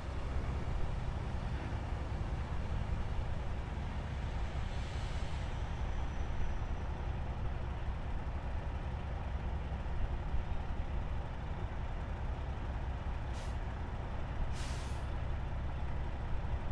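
Heavy diesel truck engine running steadily at low revs, with short hisses of released brake air, two of them close together near the end.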